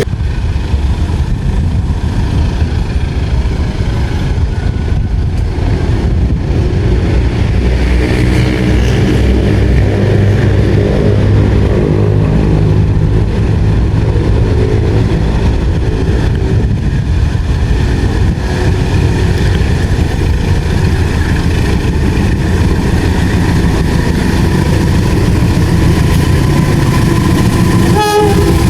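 Loud, steady engine noise of passing vehicles, with a short click near the end.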